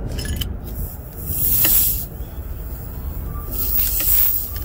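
Air hissing out of a punctured tire around a nail as it is worked loose with pliers, in two bursts: one about a second in and one near the end.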